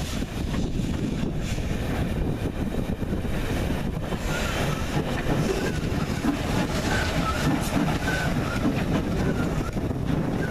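Andrew Barclay saddle-tank steam locomotive NCB No. 10 and its carriage rolling slowly past on the rails with a steady low rumble. Faint short squeaks come in from about four seconds in.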